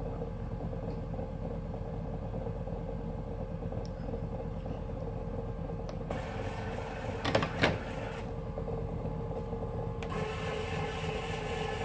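Silent Partner Smart tennis ball machine running with a steady hum. About six seconds in, and again near ten seconds, a second motor whirs for a couple of seconds as its elevation is driven from the control panel, with two short clicks around the first whir.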